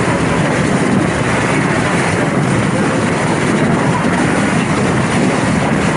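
A motorboat running steadily underway, its engine noise mixed with wind and water rush.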